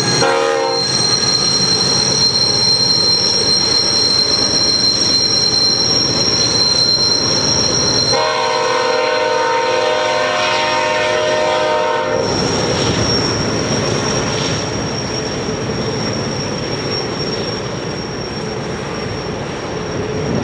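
BNSF double-stack freight train rolling past, its diesel locomotives and wheels rumbling, with steady high-pitched flange squeal from wheels on the curve. A train horn sounds briefly at the start and again for about four seconds starting around eight seconds in.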